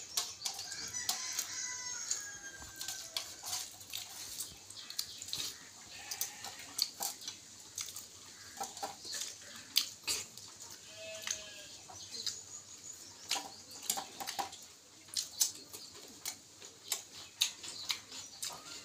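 Close-up eating sounds of rice and curry eaten by hand: a steady run of sharp, wet mouth clicks and smacks from chewing. Bird calls come in now and then in the background.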